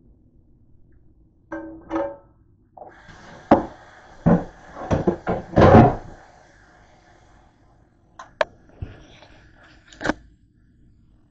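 A utensil scraping and knocking against a frying pan as fried onions are scraped out onto a plate. It opens with two short ringing clanks, then a dense run of sharp knocks and scrapes, and a few more knocks near the end.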